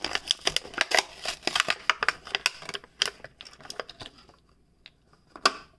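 Stiff plastic blister pack crinkling and crackling as it is peeled away from its cardboard backing card, dense for about three seconds, then thinning to a few scattered clicks, with one sharper click near the end.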